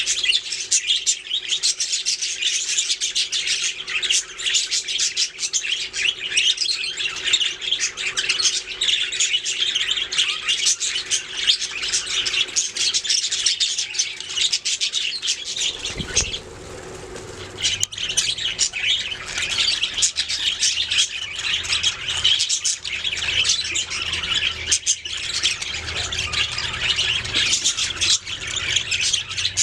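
A flock of budgerigars chattering and warbling nonstop in dense high chirps and squawks, breaking off briefly about halfway through before carrying on.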